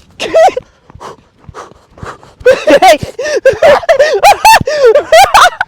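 A man breathing hard in quick, loud voiced gasps while sprinting up a sand hill. The gasps come several times a second from about halfway in.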